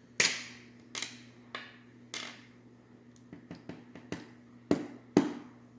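Sharp metallic clicks and taps from small metal lock parts and tools as a dimple-lock cylinder is taken apart and a pin pushed in, about eight separate strikes with a short ring, the loudest near the start and near the end.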